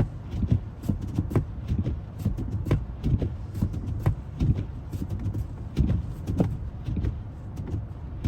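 Footsteps crunching through fresh snow, about two steps a second in a steady walking rhythm.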